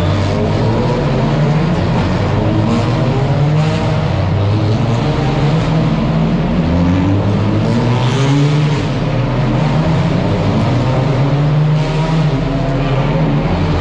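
Touring race cars accelerating out of a tight hairpin one after another. Their engine notes rise again and again and overlap as each car pulls away.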